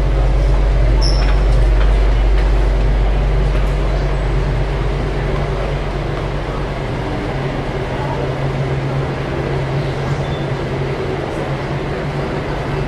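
Steady low rumbling hum of heavy machinery or rushing water inside the dam, with faint voices of people nearby.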